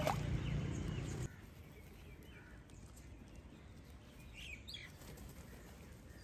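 Faint outdoor ambience with a few short, faint bird calls, about two and a half and four and a half seconds in. A louder steady rush fills the first second and cuts off suddenly.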